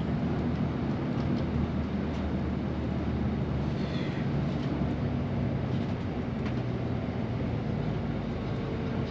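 Steady low drone of a running vehicle engine with even rumbling noise, holding level throughout.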